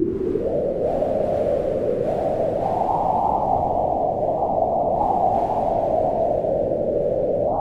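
Wind howling in gusts, a steady low rush whose pitch swells higher around three seconds in and dips and rises again near the end.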